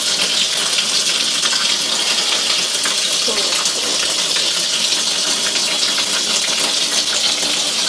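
Tap water running in a steady stream into a stainless steel sink, splashing over a chicken carcass being washed by hand.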